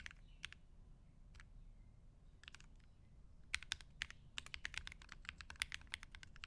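Mechanical keyboard being typed on, set on a fabric desk mat. A short flurry of keystrokes is followed by a few scattered single keys, then a fast run of typing from about halfway through that stops shortly before the end.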